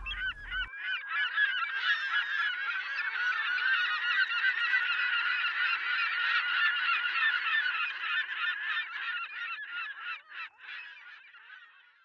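A large flock of birds calling over one another, a dense mass of short rising and falling cries that builds up in the first two seconds, then thins out and fades away near the end.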